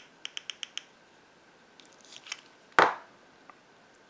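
Hot glue gun trigger clicking rapidly as glue is fed out, stopping just under a second in. About three seconds in, a single loud knock as the glue gun is set down on the craft mat.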